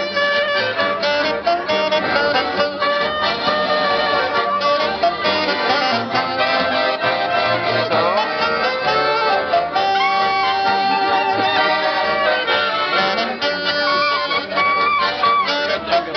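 Street band playing on three accordions, clarinet, saxophone and double bass: accordion chords and a clarinet melody over a steady bass pulse.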